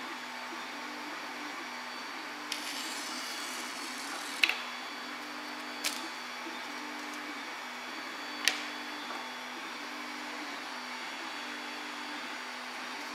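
Steady machine whir throughout. Over it, a wooden straightedge and blade work on the glass heat bed to trim the MonoKote film: a scratchy hiss about two and a half seconds in, then three sharp clicks spread over the next four seconds.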